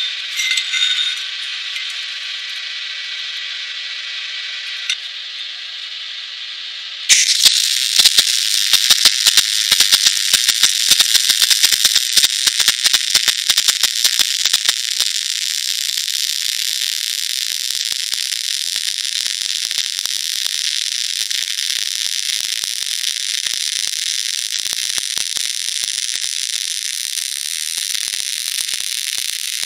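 Steady hiss, then about 7 seconds in a MIG welding arc from an IPOTOOLS MIG-185 Synergic welder strikes and crackles steadily with dense, irregular spatter clicks to the end.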